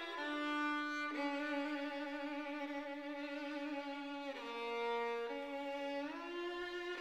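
Background music: a single melodic instrument playing a slow tune of long held notes, changing pitch a few times.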